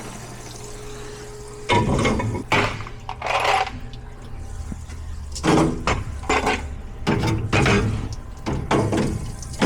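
Parts washer running: a steady low pump hum starts a couple of seconds in as solvent pours over the differential parts, with metal parts clattering against each other and the tub several times.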